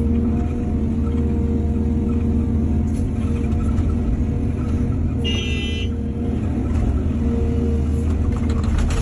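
Excavator's diesel engine running steadily under load, a constant low drone. About five seconds in there is a brief high-pitched squeal lasting under a second, and faint knocks come near three seconds and near the end.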